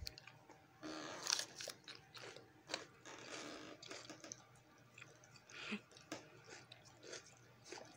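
A dog biting and chewing a piece of raw bell pepper: irregular crisp crunches in short bouts.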